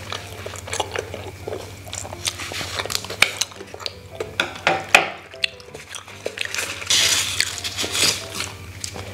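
Scissors clicking and snipping the tie string of leaf-wrapped glutinous rice dumplings (kicang), with handling taps, then the leaf wrapper rustling and crackling as a dumpling is pulled open near the end.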